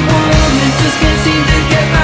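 Rock music soundtrack with distorted guitars and a steady drum beat.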